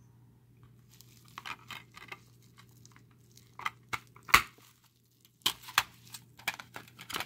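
Clear plastic Blu-ray keep case being handled and opened on bubble wrap: scattered plastic clicks and crinkling, with one sharp click a little past four seconds in and a few more about a second later. A faint steady low hum underneath.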